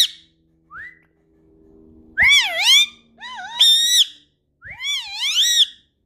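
Indian ringneck parakeet whistling: a short rising note about a second in, then three loud, high-pitched phrases whose pitch swoops up and down.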